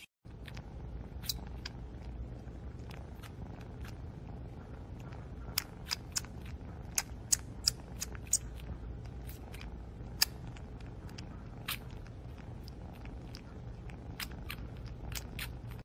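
Tabby kitten purring close to the microphone, a steady low hum, with scattered sharp clicks through the middle.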